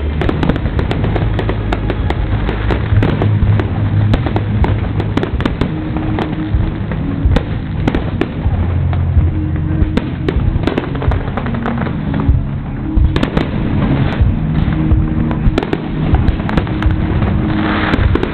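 Fireworks display: a dense, continuous run of bangs and crackles, with music playing underneath.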